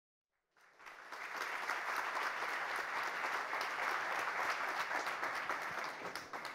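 Audience applauding, starting about half a second in after a brief silence, holding steady and fading near the end.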